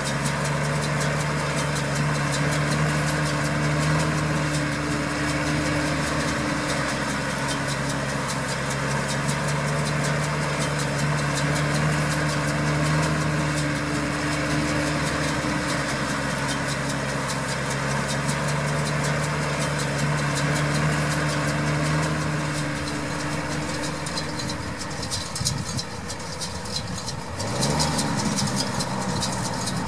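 Case IH Maxxum 125 tractor's diesel engine running at a steady working speed while pulling a round baler. Near the end the note drops away briefly, then comes back louder and rises in pitch.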